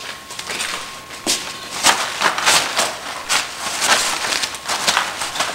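Irregular shuffling footsteps and fabric rustling as people move about close by, a dozen or so soft scuffs over a few seconds.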